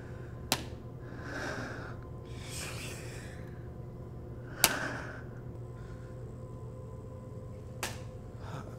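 Soft breathy exhales, like stifled snickers, with three sharp clicks, the loudest about halfway through, over a steady low electrical hum.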